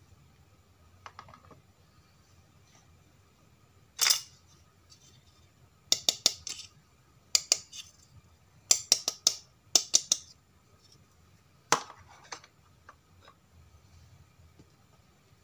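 Small hard-plastic animal figures clicking and clacking as they are handled and knocked against each other and a plastic tub: a loud click about four seconds in, quick runs of clicks through the middle, and another loud click near the end.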